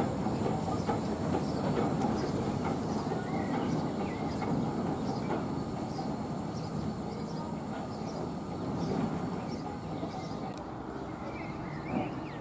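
A train running past on the track, its rumble and wheel noise slowly fading as it moves away.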